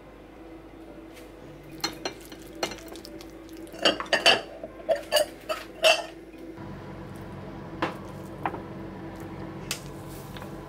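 Cutlery clinking against dishes: a run of sharp clinks, loudest four to six seconds in, then a few single clinks.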